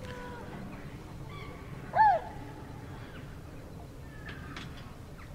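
Wild birds calling: a few faint short calls, and about two seconds in one loud, brief call that rises and falls in pitch, over a low steady background rumble.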